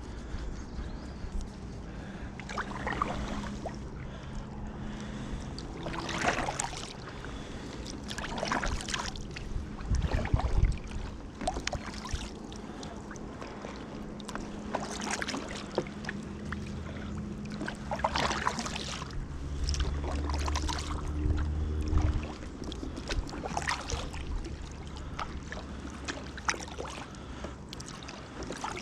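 Kayak paddle strokes: the blades dip and splash into the water every two to three seconds, with a steady low hum underneath.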